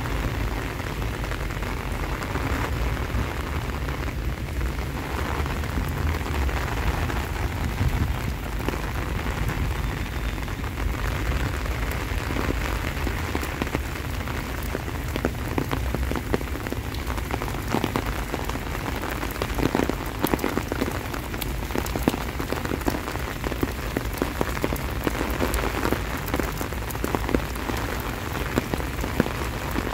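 Steady heavy rain falling and splashing, with many sharp close drop hits that grow thicker in the second half, over a low rumble.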